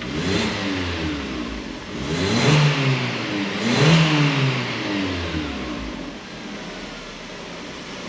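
Nissan Livina engine revved in three quick throttle blips, each rising and falling in pitch, then settling back to a steady idle about six seconds in. The engine has 241,000 km on it, has just been repaired and runs smoothly.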